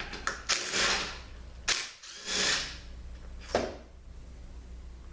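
Ratchet backing out the valve body bolts on a 200-4R automatic transmission, in four short bursts of about half a second or less, over a low steady hum.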